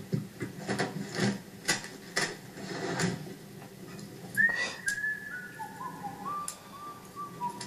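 Irregular rustling and soft knocks, then, about four and a half seconds in, someone whistling a short tune of held notes that step downward in pitch. Heard through a television's speaker.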